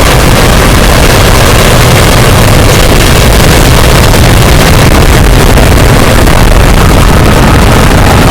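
Very loud, steady, heavily distorted noise with a deep rumble underneath and a faint steady tone coming in near the end.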